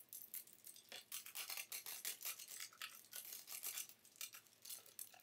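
Plastic shrink wrap crackling and tearing as it is cut with a utility knife and peeled off a stainless steel exhaust tube: a faint, rapid run of crinkles and scratches.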